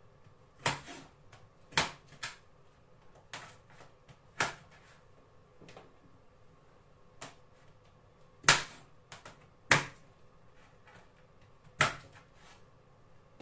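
Kitchen knife chopping on a cutting board: about ten sharp knocks, spaced unevenly a second or so apart, the loudest about eight and ten seconds in.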